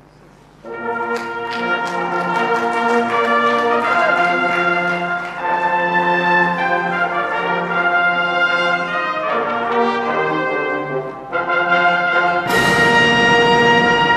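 Brass band music starting about a second in, playing a short piece of changing chords, with a loud final chord and a crash near the end.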